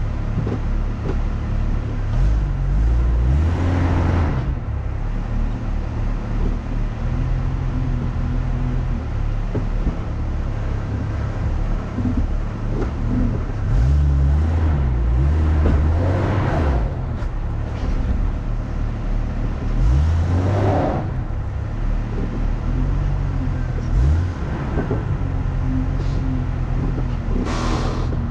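Off-road vehicle's engine running under load on a rough trail, revving up in surges several times, each surge with a brief burst of rougher, gritty noise.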